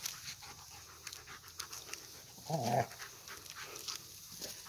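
A dog panting in quick short puffs as it pushes a ball along with its nose, with a brief low grunt about two and a half seconds in.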